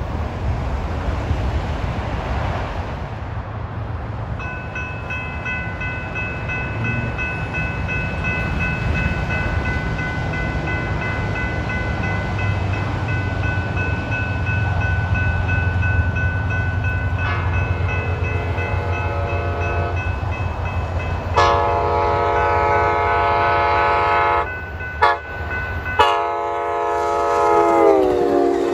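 Grade-crossing bell ringing steadily as a Capitol Corridor passenger train approaches. The locomotive's multi-chime horn sounds the crossing signal: a fainter long blast, a loud long blast, a short blip, then a final long blast that drops in pitch as the locomotive passes close by. A steady low rumble runs underneath.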